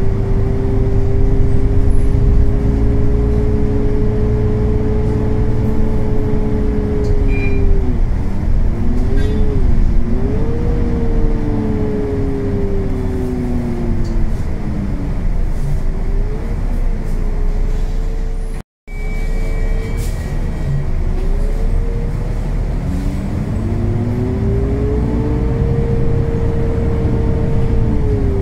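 Volvo B9TL bus with a D9B engine and a loud radiator cooling fan, heard from inside the passenger cabin: a loud, steady drone with a whining pitch that holds, wavers and falls as the bus slows, then rises again as it pulls away. The sound cuts out for a moment about two-thirds of the way through.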